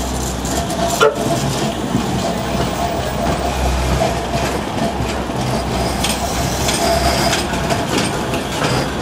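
Manchester Metrolink M5000 tram running slowly past at close range on street rails, a steady rumble with a faint steady whine. A single sharp click comes about a second in.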